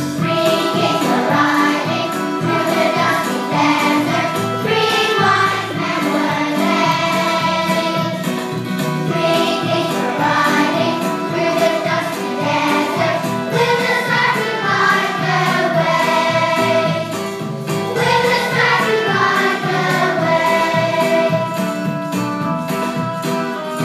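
Young children singing a song together as a choir over instrumental accompaniment.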